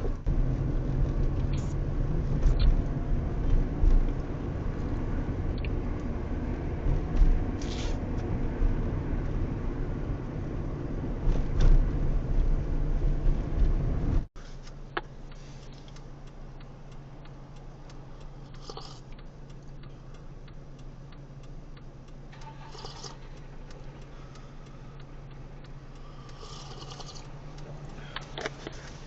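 Inside a taxi car's cabin: engine and road noise while driving. About halfway through, an abrupt cut leads to a much quieter, steady engine hum with a few faint clicks.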